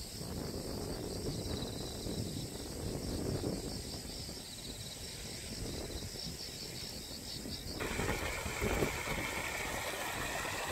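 Insects chirping in a high, pulsing drone over a low outdoor rumble; about eight seconds in, this gives way suddenly to the loud, steady rush of muddy floodwater pouring through a ditch into a rice paddy.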